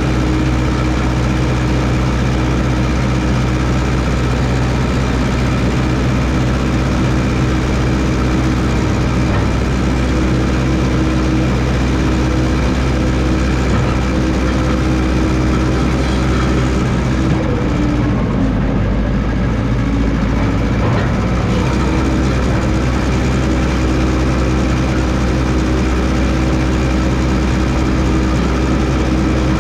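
1969 Massey Ferguson 300 crawler dozer's engine running steadily while grading. Its pitch sags for a few seconds a little past halfway, then comes back up.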